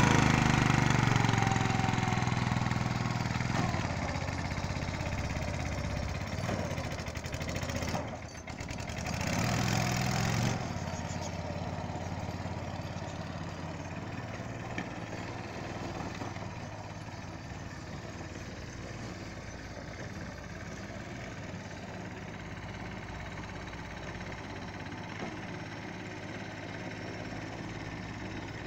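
Small single-cylinder engine of a ride-on lawn mower running steadily as it drives across the plot. It is loudest close by at the start and fades to a more distant hum as it moves away, with a brief swell about eight to ten seconds in.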